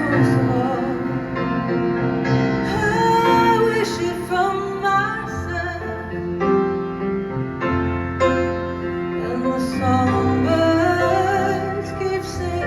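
Live music: a woman singing long, held notes over piano accompaniment.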